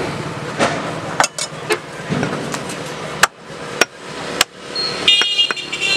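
Butcher's cleaver chopping on a wooden log block: about six sharp, irregular knocks. Near the end a brief ringing sound with several high tones comes in.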